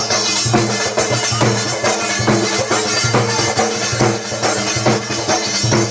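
Marwari dhol dance music: a dhol beating a steady rhythm of about two strokes a second under a held, droning melody.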